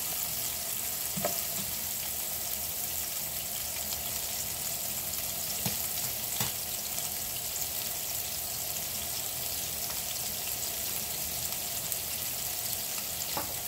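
Meatballs sizzling steadily in hot oil in a frying pan as they brown, with a few faint pops and ticks.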